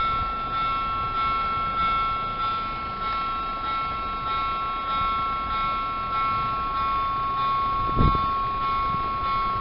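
Level crossing's electronic warning bell sounding steadily as two high tones while the barriers are down. A brief low thump comes about eight seconds in.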